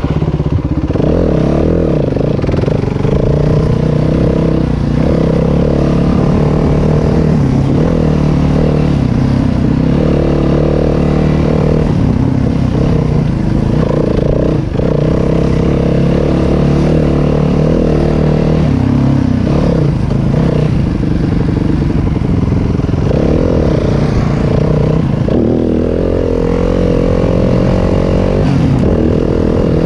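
Yamaha WR250F dirt bike's four-stroke single-cylinder engine running under load, its pitch rising and falling as the throttle opens and closes, with a longer climb in revs about 25 seconds in.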